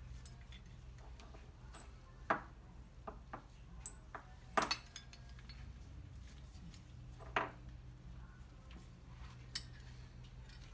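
Small metal parts (bracket, bolts and washers) clinking and knocking as they are handled and fitted, in a handful of separate sharp clinks; the loudest comes about four and a half seconds in. A steady low hum runs underneath.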